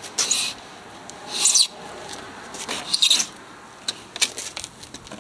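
Sheet-metal housing of an RV water heater scraping against the edges of its wall opening as it is pulled out, in three short rasping scrapes followed by a few light clicks.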